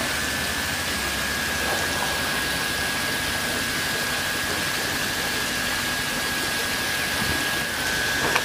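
Steady rushing of water from pump-fed sprays pouring into the fish tanks, with a steady high whine over it.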